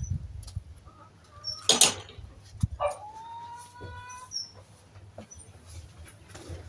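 Lurcher whining: one long, steady, high whine about three seconds in, preceded by a brief sharp noisy burst.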